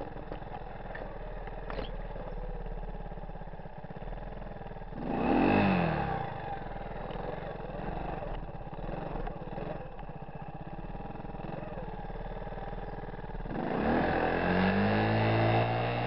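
1985 Honda ATC 125M three-wheeler's single-cylinder four-stroke engine running while riding, revving up briefly about five seconds in and again near the end.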